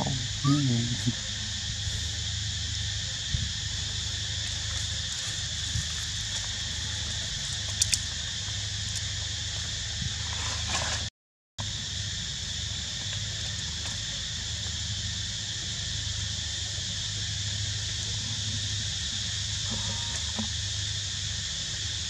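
Steady, high-pitched drone of a chorus of tropical forest insects, with a low hum beneath it. A few short, high calls sound in the first second, and everything drops out for about half a second midway.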